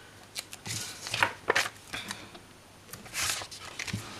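Paper and sticker sheets being handled, a few short rustles and snips in the first two seconds, then a longer scrape about three seconds in as the spiral planner is turned on the table.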